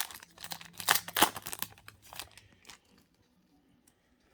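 Trading-card pack wrapper being torn open and crinkled in the hands, loudest about a second in, then stopping after about three seconds.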